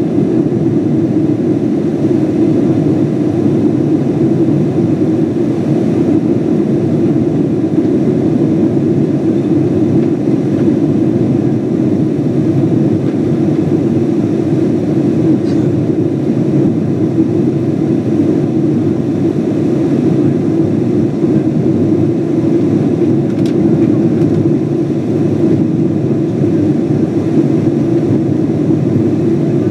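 Steady cabin roar of a Boeing 777-200 in its climb after takeoff: engine and airflow noise, a deep even rumble that does not change, heard inside the cabin.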